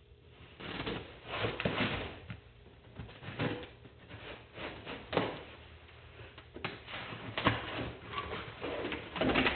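Small shipping box being opened and its contents handled: irregular rustling, scraping and a few light knocks.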